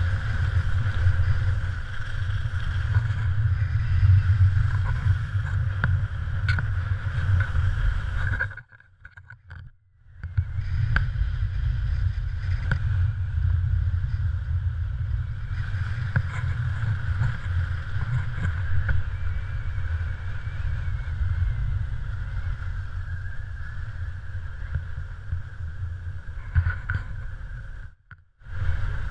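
Wind rumbling over a GoPro camera's microphone during a ski run, with a steady hiss of skis on snow above it. The noise cuts out almost completely for about a second and a half about eight seconds in, and again briefly near the end.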